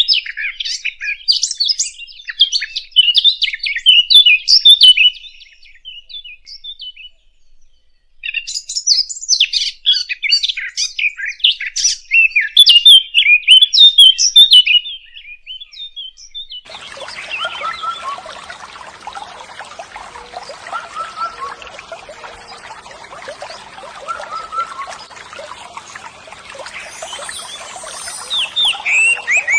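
Small birds chirping busily in rapid, high twitters, pausing briefly about a quarter of the way in. About halfway through the chirping stops and a softer, steady hiss takes over, with faint chirps now and then.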